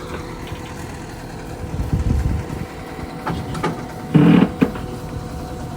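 John Deere 331G skid steer's diesel engine idling steadily, with a louder low surge about two seconds in and a short, sharp sound a little after four seconds.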